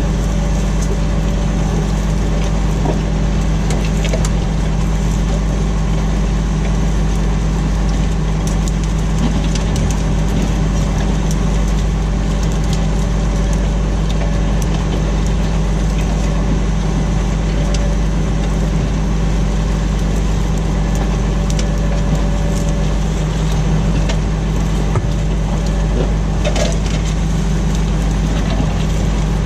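Tractor engine running steadily while pulling a plough through the field.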